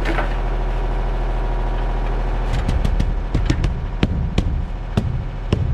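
A machine's engine idling steadily, joined about two and a half seconds in by a run of irregular knocks and thuds.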